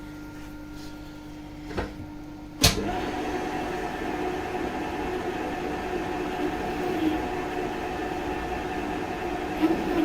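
Smart & Brown lathe running steadily, then about two and a half seconds in a sharp knock as the three-flute carbide drill bit meets the end of the spinning stainless steel rod. A louder, steady cutting noise follows as it chamfers the bore.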